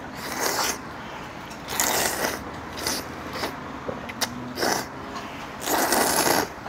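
A person loudly slurping thick knife-cut noodles (kalguksu) from a bowl of clam broth, in a series of short slurps, the longest and loudest near the end.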